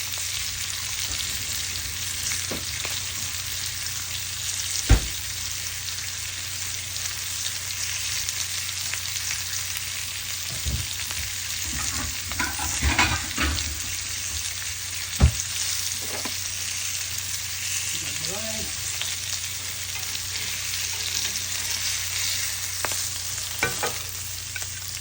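Food sizzling steadily on a hot grill, a continuous hiss. Sharp knocks come about 5 and 15 seconds in, with a cluster of smaller clicks in between.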